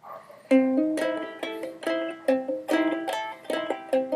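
Ukulele played clawhammer style, plucked notes and strums in a bouncy rhythm, starting about half a second in.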